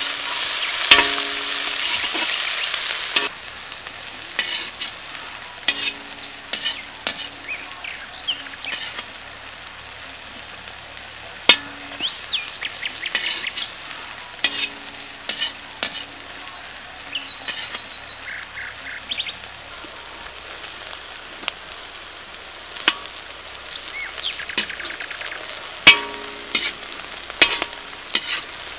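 Sliced onions and green vegetables sizzling in hot oil in a heavy black iron kadai, stirred with a slotted metal ladle that scrapes and knocks against the pan. The sizzle is loud for the first three seconds, then drops to a quieter frying hiss with the ladle's clatter over it.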